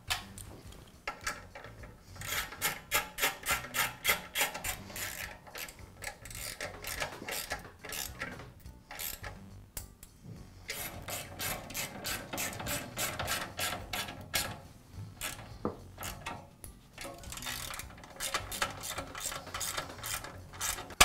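Hand socket ratchet clicking as it drives screws into a small engine, in several runs of rapid clicks with short pauses between them.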